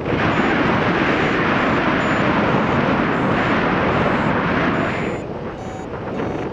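Airflow rushing over the microphone in paraglider flight: a loud, steady rush that eases a little about five seconds in. Faint short high beeps from a flight variometer sound behind it.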